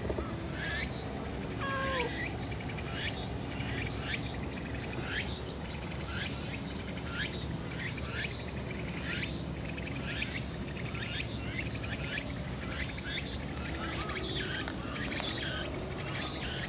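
Outdoor chorus of short, sharply falling chirps from calling animals, repeating about twice a second, with one lower call about two seconds in. A steady low background rumble runs underneath.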